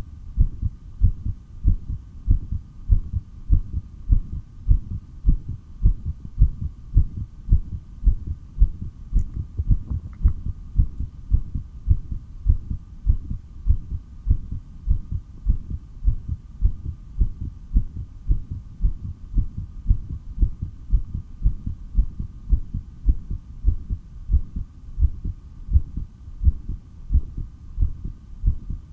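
Human heartbeat picked up through a stethoscope: a steady, regular pounding of low thumps, with a faint steady hum beneath.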